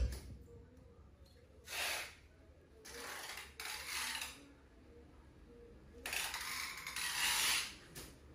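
A quiet gap in the music playback, broken three times by faint, short hissy rustles lasting from half a second to nearly two seconds.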